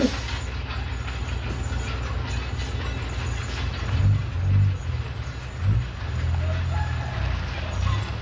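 Komatsu D31PX crawler bulldozer's diesel engine running under load, with a steady low drone and several louder swells from about four seconds in. There is a short sharp knock right at the start.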